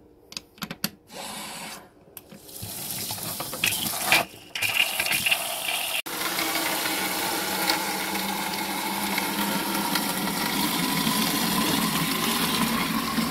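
Water running into a container and filling it. A few clicks and knocks come first, then the flow starts about two and a half seconds in and builds to a steady rush.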